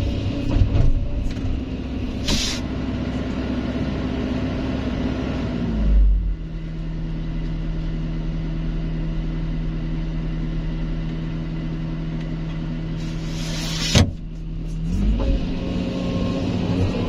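Hydraulic excavator's diesel engine running, its speed dropping about six seconds in and holding lower before rising again near the end. A short hiss comes early on and a longer hiss builds later, ending in a sharp knock.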